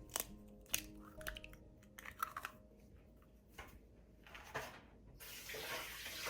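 A handful of light clicks and knocks of things being handled, then running water, like a tap turned on, starting about five seconds in, under soft background music.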